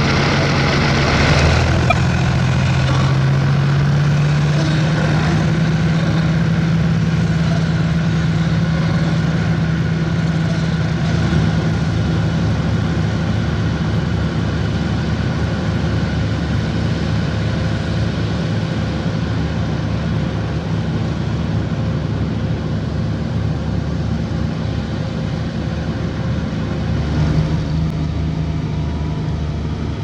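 Heavy diesel engines of asphalt-paving machinery (paver and road rollers) running in a steady drone, the deep engine note stepping up slightly in pitch about three or four seconds in.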